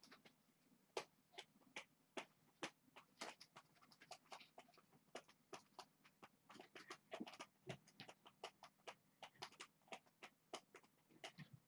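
Faint, irregular clicks and light taps, two or three a second.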